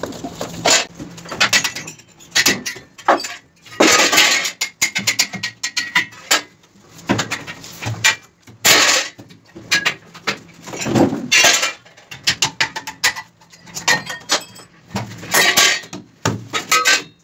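Metal tool striking and prying at steel formwork clamps, irregular groups of sharp clanging knocks and metal clatter as the clamps are knocked loose for formwork removal.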